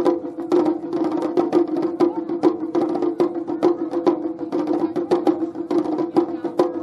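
Taiko drumming: a small, tightly tuned shime-daiko struck in a fast, even run of sharp, ringing cracks, about four to five a second, with the ensemble's larger drums beneath.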